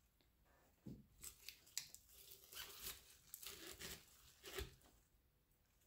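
Leaves and stems of cut flowers rustling and brushing together as lily stems are pushed into a bouquet in a vase: a series of short, crinkly rustles with a few light knocks, between about one and five seconds in.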